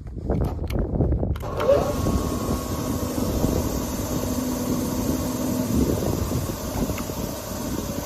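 A Gomad DCFDA spindle moulder running with a steady mechanical whir. A hiss joins in about a second and a half in and then holds steady.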